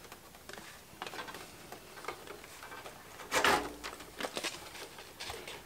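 A sheet-metal shield cover being lifted off an electronic test instrument's chassis and moved aside: scattered light clicks and taps, with a louder clatter about three and a half seconds in.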